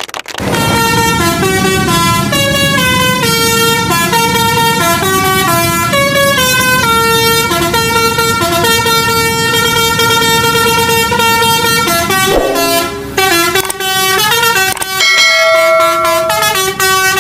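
Multi-tone 'telolet' horn playing a fast tune, its notes stepping up and down several times a second, with a short break about thirteen seconds in.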